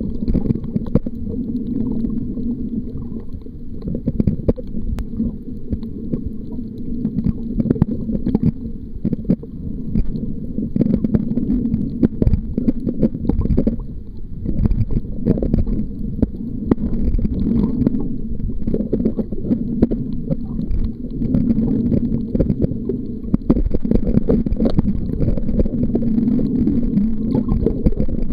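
Muffled underwater rumble of moving water picked up by a submerged waterproof camcorder. It swells and eases every few seconds, with frequent sharp clicks and crackles.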